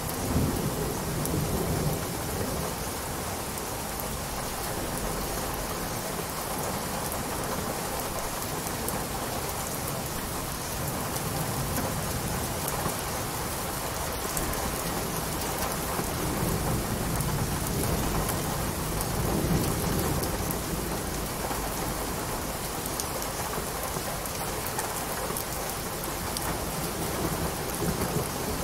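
Steady rain, with low thunder rumbles swelling near the start and again a little past the middle.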